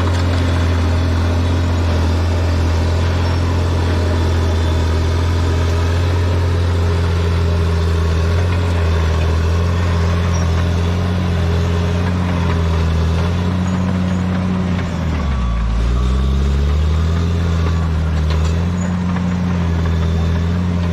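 Bulldozer's diesel engine running steadily and close by. About three-quarters of the way through, its speed sags briefly and then picks back up.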